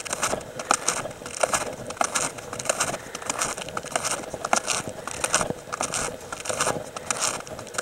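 Snowshoes crunching through snow in a steady walking rhythm, about three steps every two seconds.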